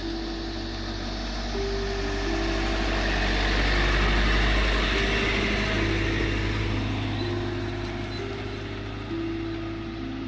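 Iveco Daily camper van driving past over cobblestones: engine and tyre noise swell to a peak about four seconds in, then fade as it pulls away. A slow melody of held notes plays along with it.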